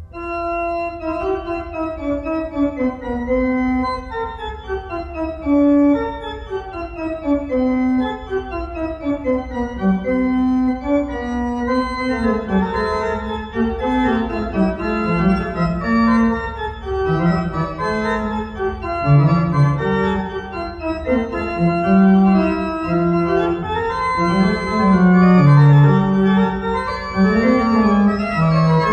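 Background music: an organ-like keyboard playing a melody of stepping note runs over chords.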